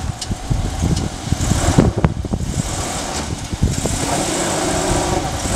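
Jeep Wrangler JK Rubicon driving slowly on a dirt track: the engine running low with tyres rolling over gravel, with scattered small knocks and crunches and a steady hiss of grit under the tread.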